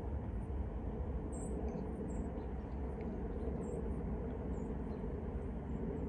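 Cedar waxwings calling: short, very high, thin notes scattered through, over a steady low rumble.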